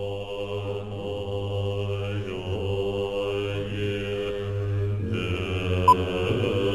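Low, droning chant of male voices in the Tibetan Buddhist style, one deep held pitch with the vowel sound slowly changing over it. Near the end a single short high beep sounds: the 'two' beep of a film countdown leader.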